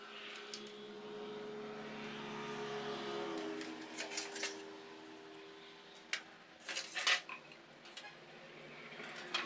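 A vehicle engine drones steadily, its pitch dropping about three seconds in. Metal pieces knock and clink a few times over it, the loudest a sharp knock about seven seconds in.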